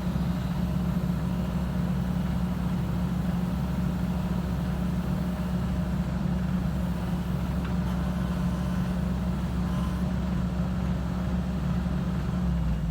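Excavator's diesel engine running steadily at a constant speed, a deep even hum whose pitch dips slightly near the end.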